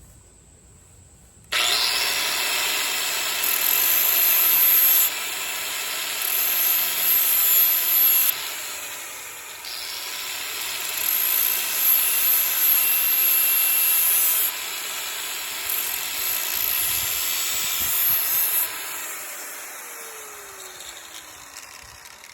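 DeWalt power sander switching on about a second and a half in and running while a machete blade is sharpened against it, with a hissing grind that comes and goes. It is switched off near the end and winds down with a falling whine.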